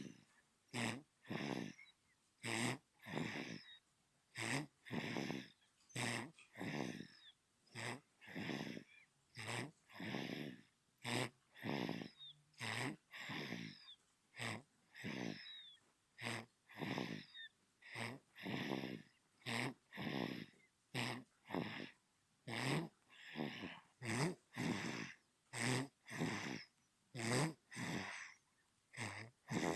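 Newborn baby snoring in its sleep: short snoring breaths, about one a second, with quiet gaps between.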